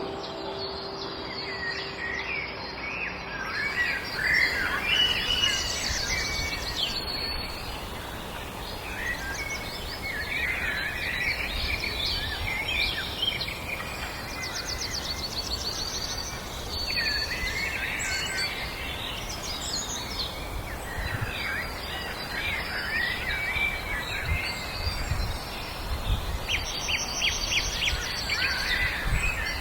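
Several songbirds singing and chirping together: overlapping whistled phrases and quick trills, over a steady background hiss.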